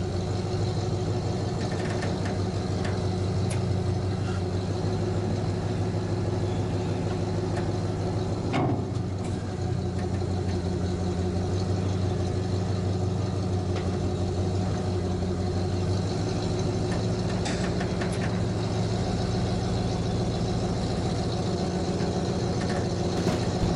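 Pickup truck engine idling steadily as it slowly pulls the travel trailer, heard from the truck bed just behind the cab. There is one brief knock about nine seconds in.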